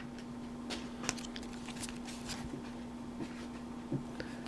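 Faint scattered clicks and rustles of trading cards and a foil booster pack being handled, over a steady low hum.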